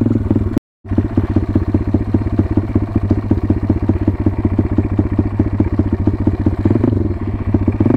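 WPB Beast 190 pit bike's single-cylinder four-stroke engine running under way at fairly steady revs, with a fast, even firing beat. The sound drops out completely for an instant just under a second in.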